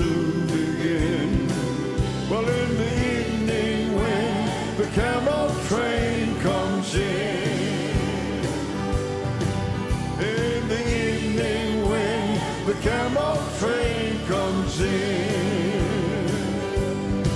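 Live gospel music: piano and drums with a group of singers holding wavering notes.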